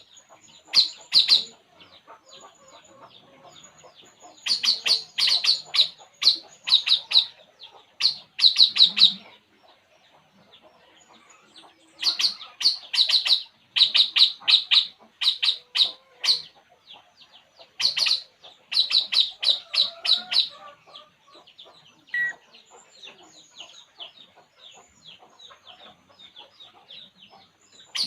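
A burung puling songbird singing: strings of rapid, high, repeated chirps in bursts of one to three seconds, broken by short pauses, going quieter for the last several seconds.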